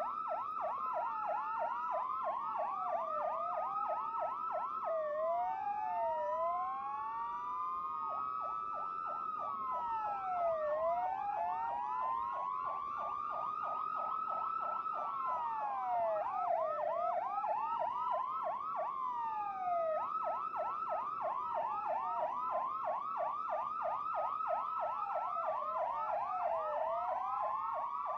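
Several police car sirens sounding at once, slow rising-and-falling wails overlapping with fast yelp sweeps several times a second.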